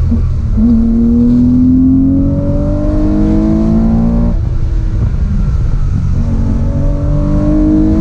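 Car engine heard from inside the cabin, accelerating hard. It climbs in pitch through one gear for about four seconds, drops sharply at a gear change, then climbs again through the next gear.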